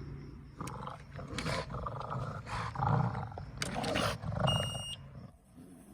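Pug growling in a series of short rough bursts, with a brief high beep about four and a half seconds in.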